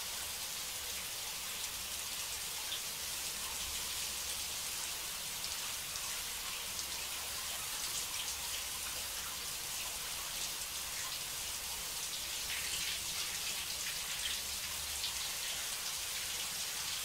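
Shower running: a steady spray of water falling from the shower head, an even hiss with faint spattering throughout.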